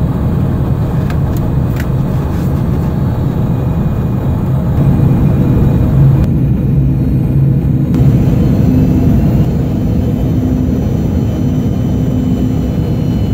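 Steady in-flight cabin noise of a Cessna Citation CJ1+ on approach: the drone of its twin Williams FJ44 turbofans and rushing airflow, with a low steady hum underneath. The higher hiss drops away for a couple of seconds about six seconds in.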